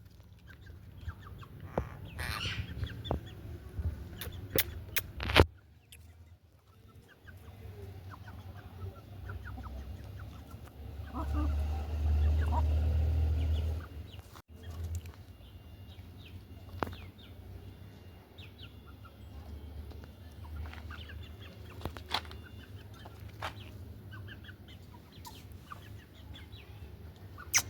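Indian ringneck parrot making short chirps and squawks, among sharp clicks and knocks. A low rumble lasts about three seconds near the middle and is the loudest sound.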